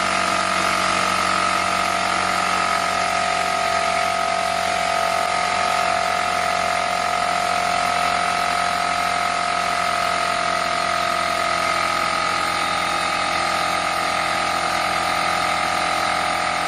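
Bostitch BTFP02012 6-gallon oil-free pancake air compressor running, its pump filling the tank just after start-up: a very loud, steady whine over a dense hiss.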